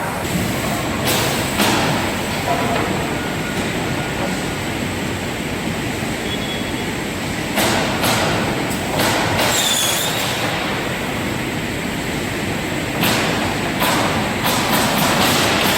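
Semiautomatic crosscut saw line running with a steady machine noise. Sharp knocks and clatter come in groups through it, about one second in, around eight to ten seconds, and repeatedly near the end.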